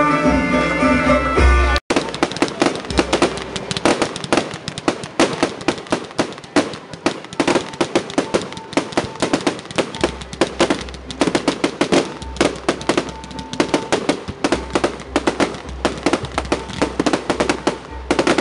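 Music plays for about two seconds, then there is a sudden cut to a fireworks barrage: many rapid bangs and crackles, several a second, from aerial shell bursts.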